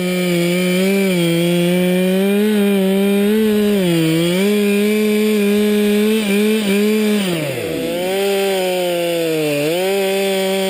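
Two-stroke chainsaw at full throttle cutting through the trunk of a blue spruce spar during the felling cut, its pitch sagging now and then as the chain bites into the wood. A little past halfway the revs drop sharply almost to idle, then climb back up to full speed.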